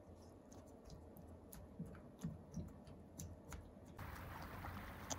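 Faint scattered clicks and soft taps of a spoon stirring sliced cucumbers in a stainless steel bowl. About four seconds in, these give way to a steady faint hiss.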